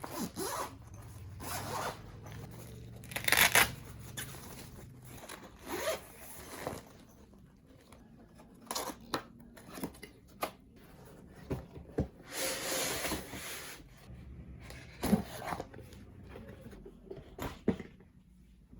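Packaging being handled and opened by hand: an irregular run of rubbing, scraping and tearing swishes with several sharp clicks and taps.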